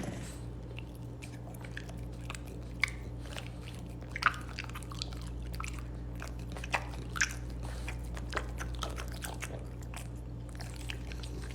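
Irregular crunching and clicking, like something being chewed, with a few sharper clicks scattered through, over a steady low hum.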